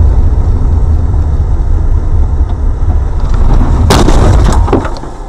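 Steady low rumble of a car in motion, heard through a dashcam inside the cabin. About four seconds in comes a loud, sharp crunching impact, a vehicle collision, with a few smaller cracks just after it.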